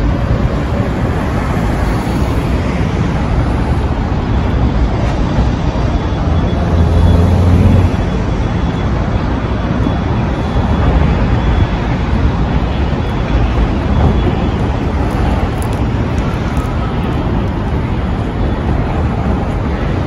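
Busy city street traffic: cars and buses passing in a steady wash of noise, with a louder low rumble from a close vehicle about seven seconds in.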